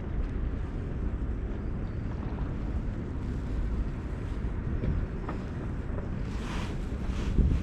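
Wind buffeting the microphone, a steady low rumble, with a short rushing hiss near the end.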